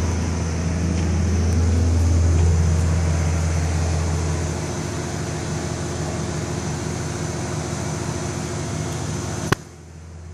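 Farm tractor's diesel engine running steadily with a deep hum. About four and a half seconds in the deepest part of the hum drops away, and near the end a sharp click is followed by a quieter moment.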